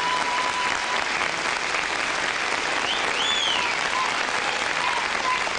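Studio audience applauding and cheering, with one high rising-and-falling whistle about three seconds in.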